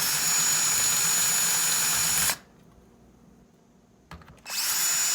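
Power drill running at a steady speed in two runs of about two seconds each, with a short pause and a few clicks between them, backing out a rusty bolt.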